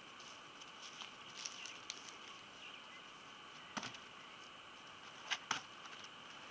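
Firewood logs knocking as they are dropped onto a pile: one sharp wooden knock a little under four seconds in and two more close together near the end, over a faint steady outdoor hiss.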